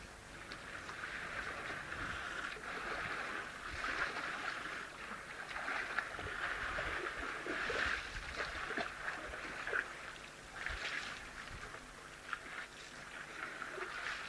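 Water splashing and sloshing as African elephants, calves among them, wade into a waterhole, a steady wash of water with irregular splashes on top.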